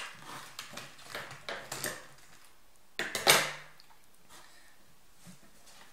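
Plastic packaging crinkling and rustling as hands rummage in a cardboard toy box, with a louder crinkle about three seconds in.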